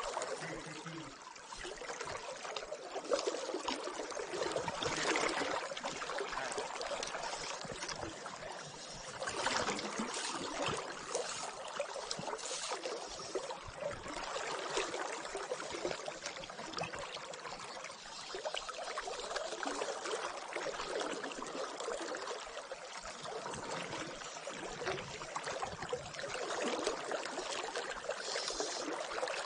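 South Platte River current running and trickling close by, a steady rush of moving water that swells a little louder a few times.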